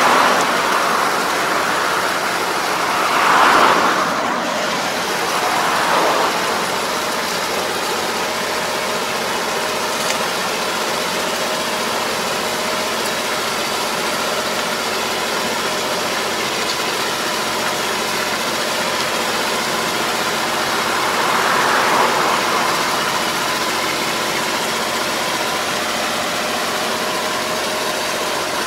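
Farm tractor engine running steadily while it pulls a rotary harrow through a flooded rice paddy. A few brief swells of rushing noise rise and fall over the drone: near the start, twice in the first six seconds, and once about two-thirds of the way through.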